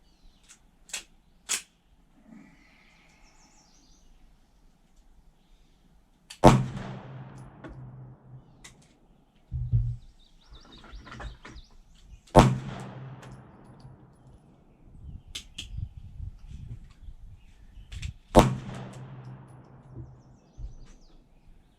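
Three single shots from a 9mm Glock 17 pistol (Salient Arms build), about six seconds apart, each with a trailing echo. Two sharp clicks come about a second in, before the first shot.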